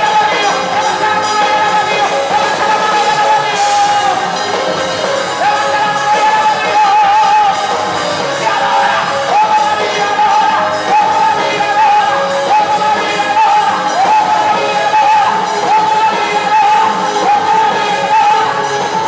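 Live gospel worship music: a woman singing a wavering, sustained melody into a microphone over a band with drums and electric guitar, played through PA speakers, with the congregation clapping along.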